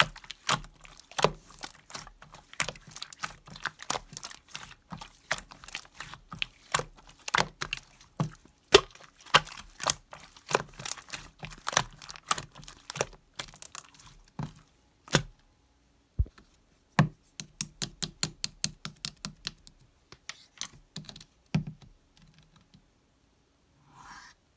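Rapid, irregular sharp clicks and taps, several a second, with a short pause about fifteen seconds in and a fast run soon after, stopping a few seconds before the end.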